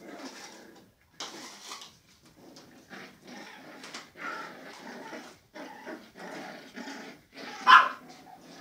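Japanese Spitz puppies growling and scuffling as they fight over a toy, in short irregular bursts, with one much louder sharp sound near the end.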